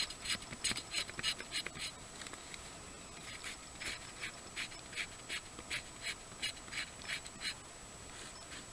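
Fairbairn-Sykes commando knife blade scraped in quick repeated strokes, about three rasps a second, shaving fine fuzzy tinder from a flat surface. The strokes pause briefly about two seconds in, then resume and stop near the end.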